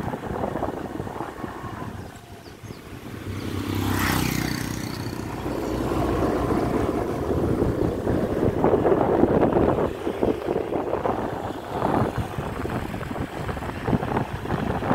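Wind rushing over the microphone while riding a small motorcycle, with the engine's pitched hum coming through more clearly about four seconds in.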